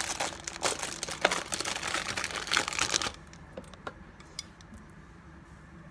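Clear plastic bread bag crinkling and rustling as slider rolls are handled, for about three seconds, then a few light clicks and taps of plastic.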